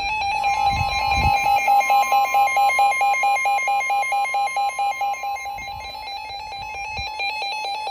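Emergency alert attention tones: a steady tone with a rapidly beeping tone under it, about five beeps a second, easing slightly in loudness toward the end. A couple of brief low thumps sound about a second in and again around six to seven seconds in.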